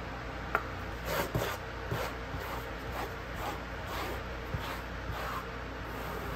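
Wide flat brush dragging thick acrylic paint across paper in repeated strokes, about two a second, after a short click near the start.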